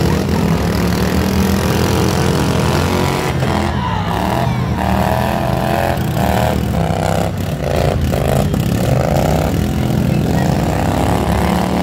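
Small engines of derby riding lawn mowers running, revved up and down in repeated short bursts through the middle.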